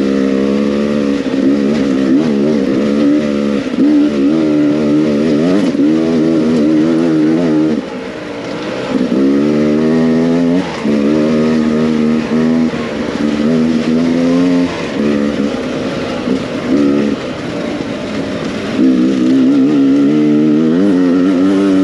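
Beta 300RR two-stroke single-cylinder enduro motorcycle engine, revving up and down over and over as the throttle is worked on rough ground. The revs drop briefly about eight seconds in, then pick up again.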